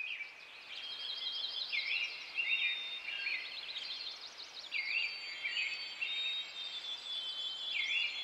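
Several birds singing at once. One bird repeats a short phrase of three swooping notes about every three seconds, over high trills and thin whistles from the others.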